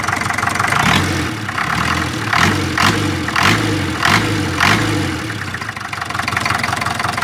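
Land Rover Series 3 engine idling after a full service. From about one to five seconds in, a run of about six sharp pulses roughly half a second apart breaks into the idle, which then settles back to steady running.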